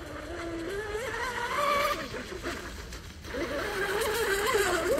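Psychocat V1 RC catamaran's 1800 kV brushless electric motor and two-blade prop whining at speed on 6S power. The pitch wanders up and down, drops away around the middle, then rises again near the end, over a hiss of wind and water.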